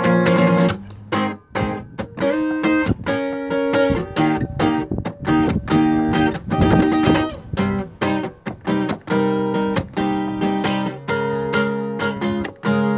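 Steel-string acoustic guitar strummed in a steady rhythm: an instrumental passage of chords without singing.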